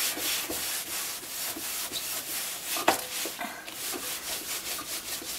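Cloth rubbing back and forth on greasy, vinegar-wet oven door glass in quick, even strokes, wiping off the vinegar and loosened baking-soda residue. There is a single sharp knock about three seconds in.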